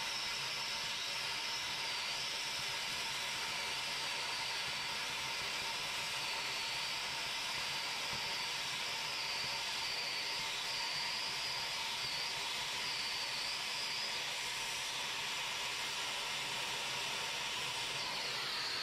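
Oxy-fuel cutting torch hissing steadily as it trims bracket remnants back toward flush with the steel suspension beam, with a wavering whistle in the hiss that fades out about 14 seconds in.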